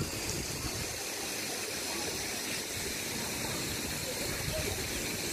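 Steady rushing and splashing of water from a swimming pool's spout fountains pouring into the pool.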